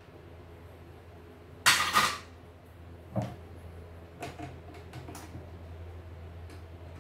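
Plastic housing of an embroidery machine being pried open and its cover pulled off: a loud double clatter of plastic about two seconds in, a sharp knock a second later, then a few lighter clicks as the parts are handled.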